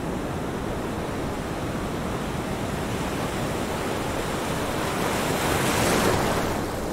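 Ocean surf: a steady wash of waves that swells to a peak about six seconds in, then eases off.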